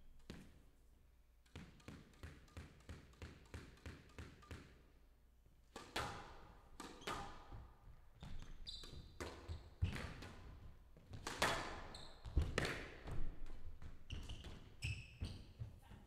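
Squash ball bounced on the court floor about three times a second, then a rally: sharp cracks of racket strikes and the ball hitting the walls, with short squeaks of shoes on the court floor.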